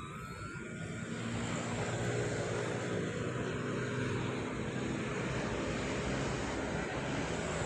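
Small motor and propeller of a remote-control dragonfly plane running in flight, a faint steady hum over a rushing noise, growing louder over the first second or so.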